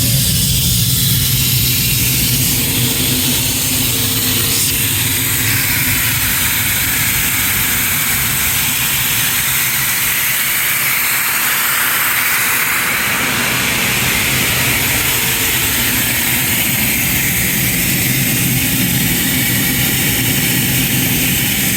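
Sullair rotary screw air compressor running after start-up: a steady machine drone under a loud air hiss that swells through the middle seconds. The hiss cuts off suddenly at the very end.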